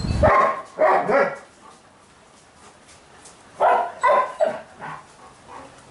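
A dog barking: a couple of barks in the first second and a half, then a quick run of barks about three and a half seconds in.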